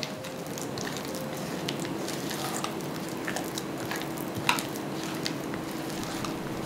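Silicone spatula working thick softened cream cheese and sugar around a glass bowl: soft squishing and scraping with light ticks of the spatula on the glass, one sharper tick about four and a half seconds in. The batter is being mixed until the sugar dissolves.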